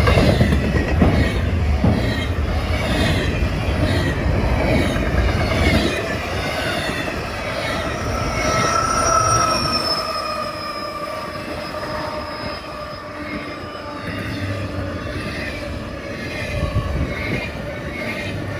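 Freight train cars rolling past at speed, steel wheels clicking rhythmically over rail joints with sustained high-pitched wheel squeal. The sound eases off somewhat after about six seconds.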